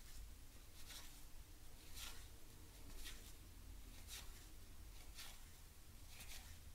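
1991 Topps cardboard baseball cards being slid one at a time off a stack, each card giving a faint papery swish, about one a second.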